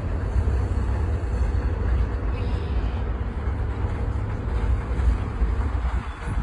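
Steady low rumble of a moving vehicle, heard from on board as it rolls along, with no distinct knocks or horn.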